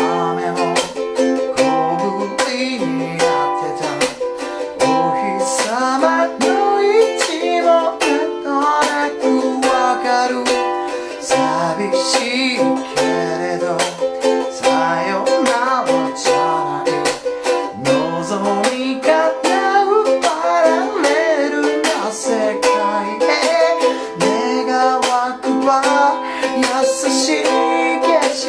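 A man singing with a small ukulele strummed in a busy sixteen-beat pattern, with muted chuck strokes between the chords.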